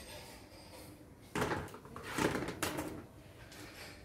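Plastic basket and basins being handled and set down on a concrete counter: three knocks and rattles between about one and a half and three seconds in.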